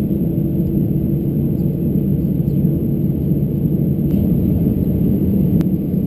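Airbus A321's CFM56 turbofan engines running at idle, a steady low rumble heard inside the passenger cabin.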